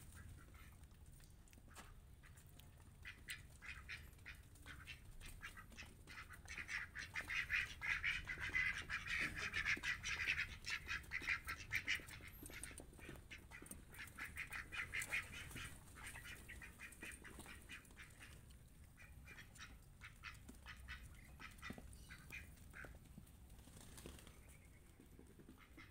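Ducks quacking in a rapid, continuous chorus. It is loudest from about a quarter of the way in to just past the middle, then fainter.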